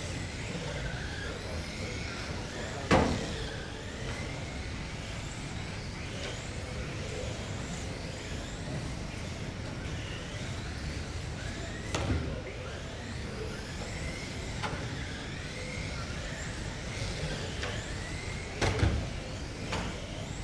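Several 1/12-scale GT12 electric RC race cars lapping a carpet track, their electric motors whining up and down over and over as they accelerate and brake. Sharp knocks come about 3, 12 and 19 seconds in.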